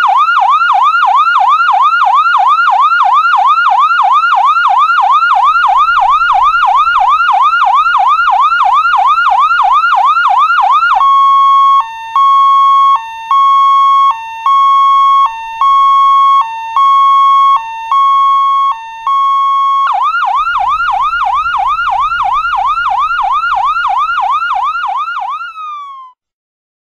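Electronic police siren on a fast yelp, its pitch sweeping up and down about three times a second. About 11 s in it switches to a steady tone broken about once a second by a short lower note. About 20 s in it returns to the yelp, which fades out near the end.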